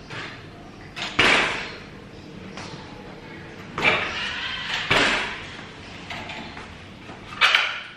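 Nami Blast electric scooter being pressed down on its suspension and rocked on a tiled floor: four short rattling, scraping bursts, each fading quickly.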